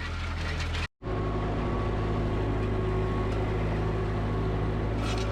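Ford 2N tractor's four-cylinder flathead engine running steadily, working with a disc harrow; the sound breaks off for a moment about a second in, then carries on unchanged.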